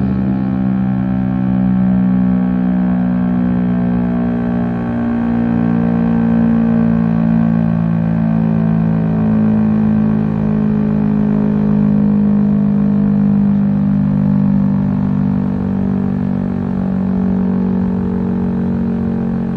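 Federal Signal STL-10 three-phase single-tone outdoor warning siren sounding its attack signal. It is a loud, low, steady siren tone with a few slight wavers and dips in pitch.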